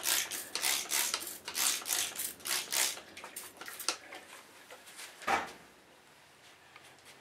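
Trigger spray bottle squirting water onto bare concrete: a quick run of short hissing squirts, about three a second, stopping about three seconds in. A single soft thump follows a couple of seconds later.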